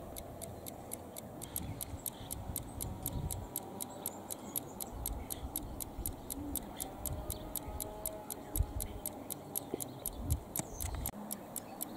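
Balance-wheel escapement of a 1962 AEG electromechanical time switch ticking evenly and quickly, about four ticks a second, its freshly lubricated mechanism running freely.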